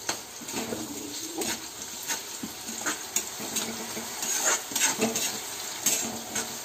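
A spatula scraping and knocking against a metal kadai as onion, tomato and green chillies are stirred, over a steady sizzle of frying. The knocks come irregularly, several to the second, and are densest about four to six seconds in.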